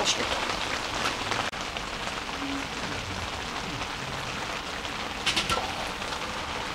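Steady rain on the fabric of a one-touch tent, heard from inside. A short cluster of light clicks comes about five seconds in.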